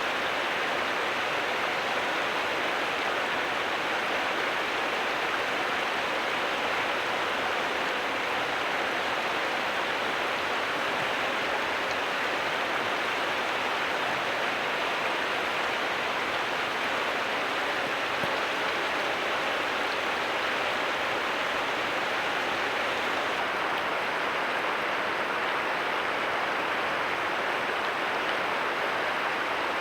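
Steady rushing of running water, an even unbroken wash with no distinct splashes or other events.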